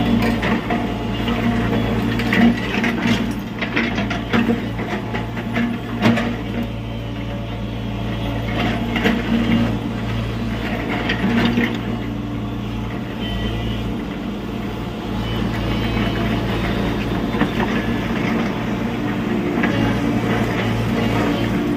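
Tata Hitachi EX70 Super Plus excavator's diesel engine running steadily, with repeated clanks and knocks over the first half, the sharpest about two and a half and six seconds in.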